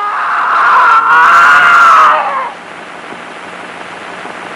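A person's loud, wavering scream from a film soundtrack, held for about two and a half seconds before breaking off, followed by a steady hiss.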